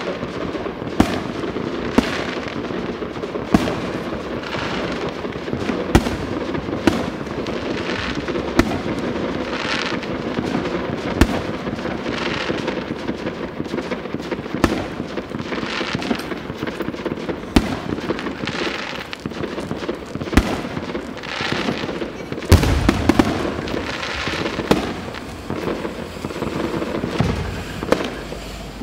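Fireworks going off all around: sharp bangs roughly every second over a dense background of smaller pops, with one heavier boom about three-quarters of the way through. Aerial shells burst in the sky.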